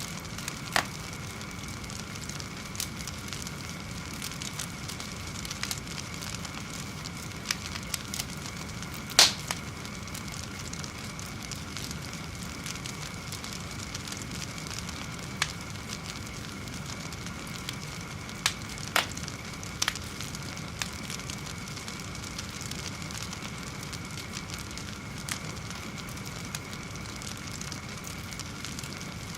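Fire burning with a steady hiss and scattered sharp pops and crackles. The loudest pop comes about nine seconds in, with a close pair of pops later on.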